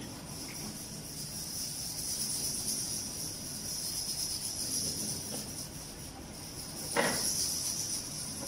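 Live experimental soundscape: a steady, high shimmering texture like chirping crickets, over a faint low hum, with one short falling swoop about seven seconds in.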